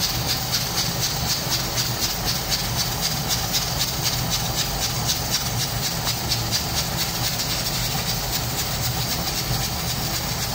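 Pressure cooker hissing steadily as it lets off steam, with a fast, even flutter in the hiss and a low hum underneath.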